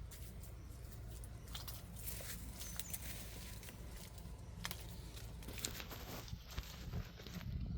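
Scattered light rustling and clicking over a steady low rumble, like movement through dry vegetation outdoors.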